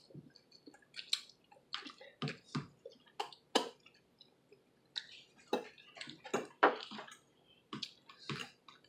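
Noodles being slurped and chewed by several people eating at once: a string of short wet slurps at irregular intervals, the loudest about three and a half seconds in and again past six seconds.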